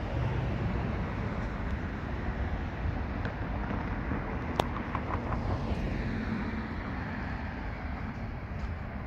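Wind rumbling on the microphone, with a single sharp click about halfway through.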